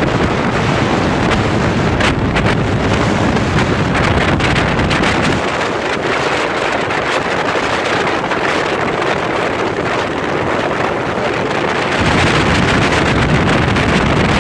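Wind blasting the microphone of a speedboat under way, with the rush of its wake. The low rumble drops away for several seconds in the middle and comes back near the end.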